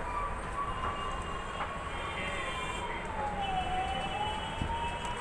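A siren wailing slowly up and down, taking about four seconds per rise and fall, over a steady low background noise.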